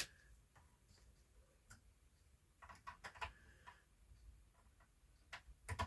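Near silence broken by a few faint, scattered clicks and light taps: small parts being handled while vacuum tubes are tested one by one.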